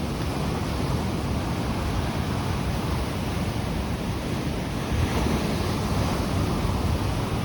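Stormy sea surf breaking under a strong gusting Jugo wind, with the wind buffeting the microphone as a low rumble that swells and eases.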